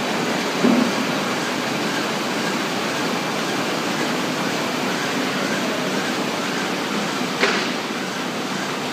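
Komori Lithrone L540 five-colour sheetfed offset press running: a steady mechanical din, with a short thump about a second in and a sharp click near the end.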